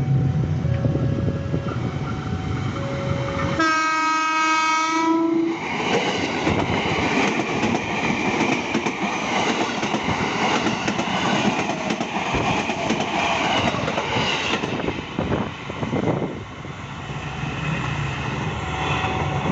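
JR 205 series electric commuter train sounding its horn once for about a second and a half a few seconds in, then passing close by with the wheels clattering over the rail joints; the running noise drops away about fifteen seconds in.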